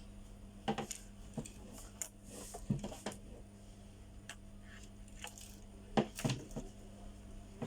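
Irregular small clicks and taps of tools handling a phone during a charging-port repair, over a steady low hum.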